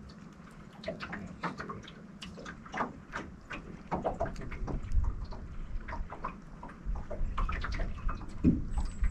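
Small waves lapping and splashing against the boat hull in irregular little slaps, with wind rumbling on the microphone. There is a short low thump near the end.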